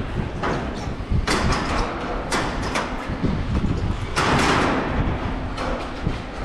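Temporary metal mesh fence panels rattling and clanking as people climb over them: a string of knocks and scrapes, with a longer rattle about four seconds in, over low rumbling handling noise.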